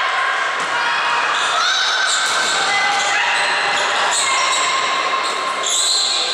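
Young spectators and players shouting and cheering without a break during a volleyball rally in a reverberant sports hall, with thumps of the ball being played.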